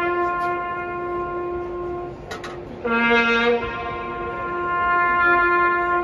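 A solo trumpet sounding a military bugle call for the Anzac remembrance, in long held notes that drop briefly to a lower, louder note about three seconds in before returning to the higher one.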